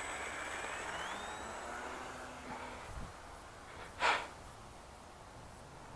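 Electric motor and propeller of a 3D-printed RC Piper J3 Cub model plane at takeoff power. The whine climbs in pitch about a second in as the throttle goes up, then fades as the plane flies off. A short burst of noise, like a breath, about four seconds in.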